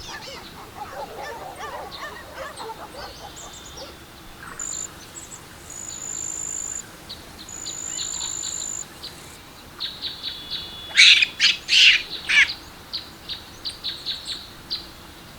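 Small birds chirping and calling. Thin high whistles are held about a second each in the first half, then a quick run of loud chirps comes around 11 seconds in, with scattered short chirps after.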